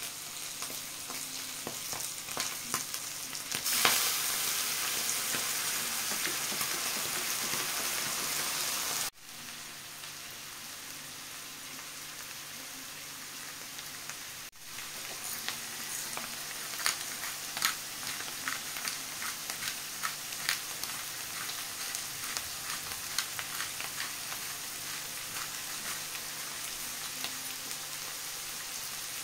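Shrimp and minced meat frying in a hot wok, a steady sizzle. It flares louder for about five seconds soon after the start, as fish sauce goes into the pan, then settles back. Over the second half the sizzle is broken by many sharp pops and clicks.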